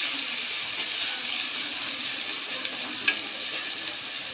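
Finely chopped onions sizzling in hot sesame oil in a clay pot, stirred with a wooden spoon: a steady frying hiss as the onions begin to sauté, with two light clicks about three seconds in.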